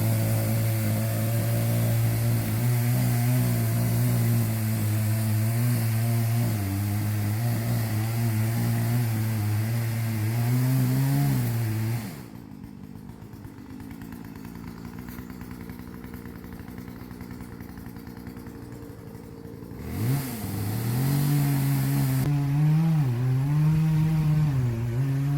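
Small chainsaw cutting into an oak trunk, its engine running steadily under load. About halfway through it drops to a quieter idle. At about 20 s it revs back up with a rising whine and runs on with a wavering pitch as it bites into the wood again.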